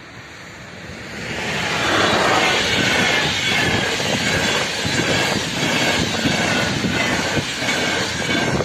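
Passenger train passing over the level crossing at speed, the wheels running on the rails. It swells in over the first two seconds and then stays loud and steady.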